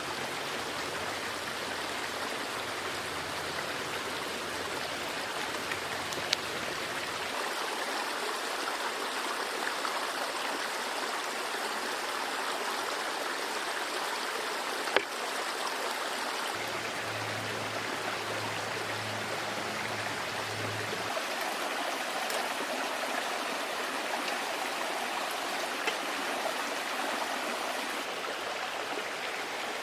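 Small brook babbling steadily, with a few sharp clicks, the loudest about halfway through.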